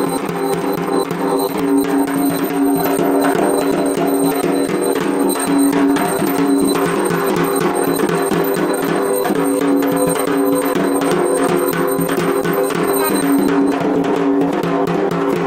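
Music with held droning notes over fast, steady percussion.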